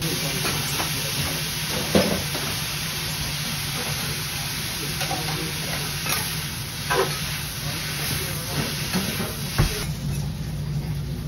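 Food frying in a hot pan: a steady sizzle with a few clicks and scrapes of a utensil. The sizzle cuts off suddenly near the end.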